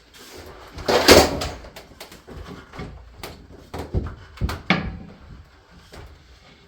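Wooden pieces being handled and set into position: a loud scrape about a second in, then a few sharp knocks of wood on wood.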